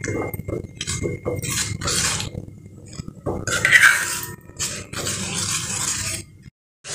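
A steel ladle scraping and clinking against a stainless-steel kadhai, stirring a thin ground-rice paste in hot water to keep lumps from forming. The strokes come quickly and irregularly, then cut off suddenly near the end.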